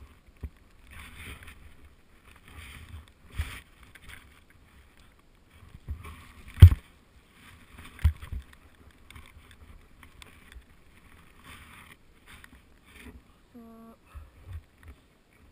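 Deep powder snow hissing in repeated bursts as a rider carves through it, sending spray over the camera. There are several sharp knocks, the loudest just after the middle.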